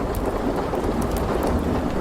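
Steady rain over a low, continuous rumble of thunder, with a few sharp crackles from a log fire scattered through it.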